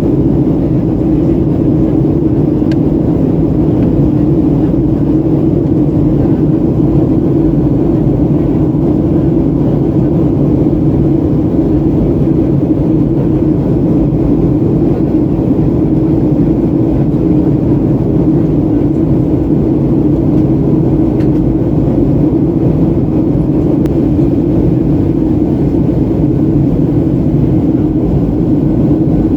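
Steady drone inside the cabin of a Boeing 737-800 in flight: the CFM56-7B engines and the airflow over the fuselage, a loud, even, low rumble with no change in pitch.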